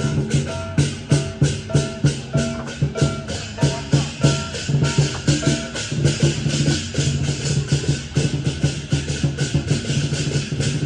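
Music with a fast, steady percussive beat, several strikes a second over repeating pitched notes.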